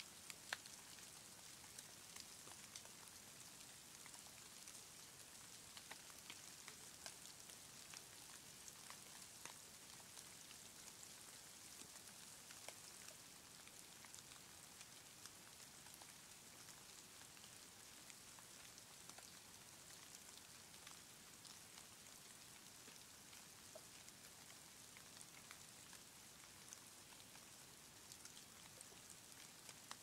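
Faint patter of falling snow: a steady soft hiss with many scattered light ticks.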